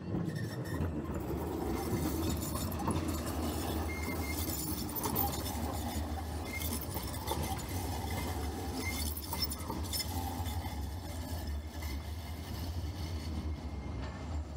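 A tram running on its rails: a steady low rumble with scattered metallic clinks and brief high squeaks from the wheels and track.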